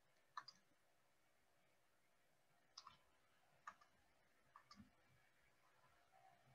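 Faint computer mouse clicks, about eight short clicks singly and in pairs over a few seconds, against near silence.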